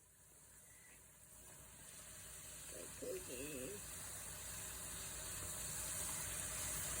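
Food frying in a pan, a steady high sizzle that grows gradually louder.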